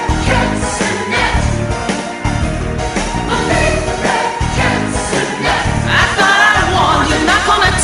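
Music: a song with several voices singing over a steady beat.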